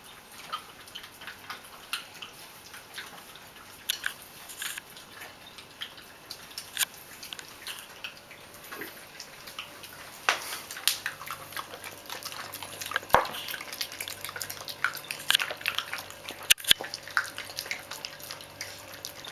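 Two miniature pinschers eating from their food bowls: irregular crunching and clicking of dry kibble being chewed and picked from the bowls, denser in the second half.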